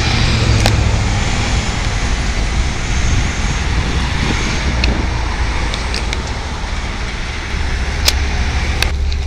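Busy street traffic: a city transit bus driving off from an intersection while cars pass close by, a steady rumble of engines and tyres. A few sharp ticks come near the start and near the end.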